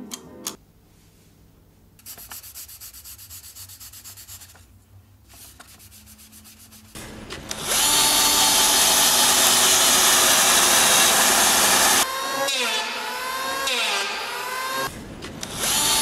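A small motor, like a power tool, runs loudly at a steady speed, then its pitch slides down and up a few times before it stops. It is preceded by a few clicks and a quick run of rapid ticking.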